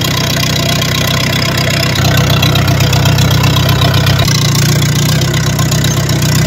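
Old tractor's diesel engine running loud and steady without a silencer, under load pulling a disc harrow. Its pitch shifts twice, about two seconds in and again past the middle.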